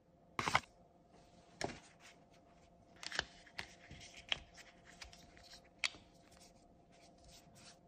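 A smartphone being handled and fitted into a snug protective case: sharp plastic clicks and short scraping rubs as the case is pressed on over the phone's edges. The loudest click comes about half a second in, with a busier run of clicks and rubbing a few seconds later.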